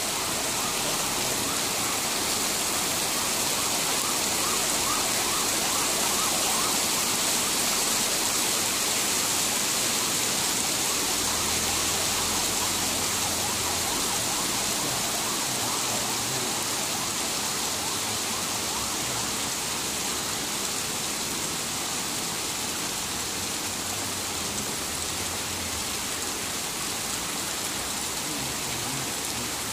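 Torrential rain pouring down steadily, a dense even hiss of drops hitting the ground, easing slightly over the second half.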